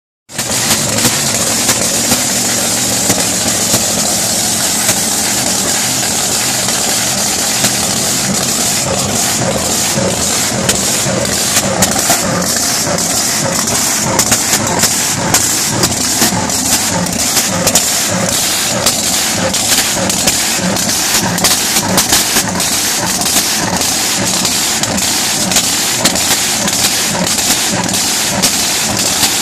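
Supercharged alcohol-burning big-block Hemi drag boat engine with a 14-71 blower running loudly and steadily, with frequent sharp cracks from about eight seconds in.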